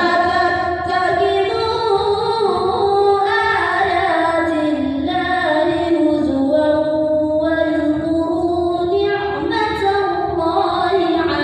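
A young female voice reciting the Quran in melodic tilawah style, one long unbroken phrase of drawn-out, ornamented notes that glide up and down.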